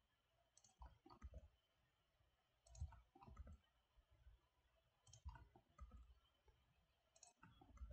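Faint computer keyboard key presses and mouse clicks, in small groups of a few clicks about every two seconds: the E key to extrude and a left mouse click to place each point.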